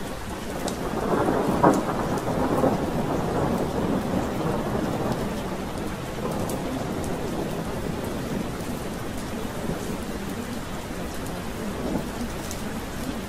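Steady rain falling, with a roll of thunder that swells about a second in, peaks near two seconds and fades over the next few seconds.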